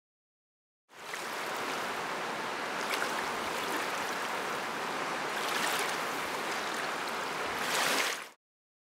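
Rushing river water, a steady rush of whitewater with small surges, starting about a second in and stopping abruptly near the end.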